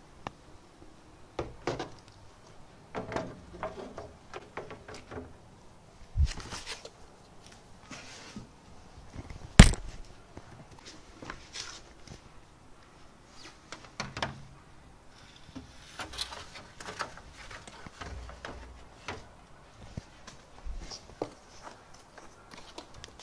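Handling noise of acrylic panels and a cardboard box: scattered knocks, taps and rustles as the panels are lifted out and set down, with one sharp, loud knock about ten seconds in.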